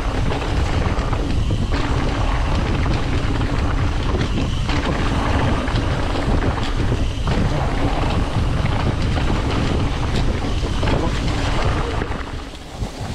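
Wind buffeting the microphone of a mountain bike's camera, over the rumble and scattered knocks of the bike's tyres rolling fast down a dry, leaf-strewn dirt trail. It eases off shortly before the end.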